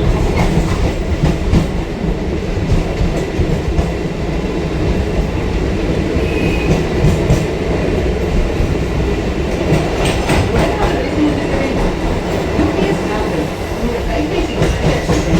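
Local passenger train running, heard from on board: a steady low rumble of wheels on track, broken by short clacks of the wheels over rail joints.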